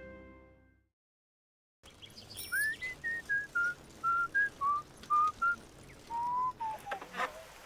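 The last chord of news theme music dies away in the first second, then after a moment of silence someone whistles a light tune of about a dozen short notes, mostly stepping down in pitch, over a faint hiss.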